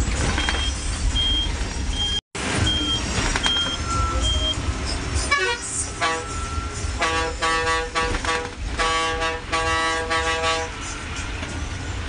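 Diesel bus engine running under a low cabin rumble, with a high electronic beep repeating about twice a second for the first few seconds. From about halfway, a loud multi-note bus horn sounds a run of blasts for around five seconds.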